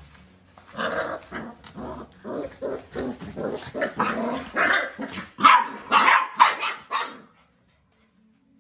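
Puppies play-fighting, one or both giving a rapid string of short barks and growls, a few a second. The barking starts about a second in and stops abruptly near the end.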